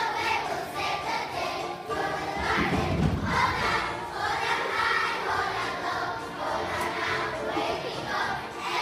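A large children's choir singing together on stage, heard from among the seated audience.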